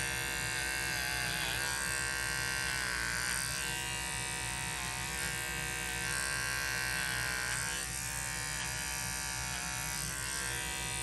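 Wahl Peanut electric clipper running steadily as it trims the hair on a Yorkie's ear, its hum dipping briefly in pitch now and then as the blade meets the hair.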